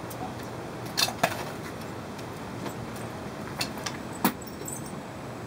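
A few sharp metallic clinks, a pair about a second in and more around four seconds in, as metal pieces or tools are handled at a coal forge. They sit over a steady rushing of air.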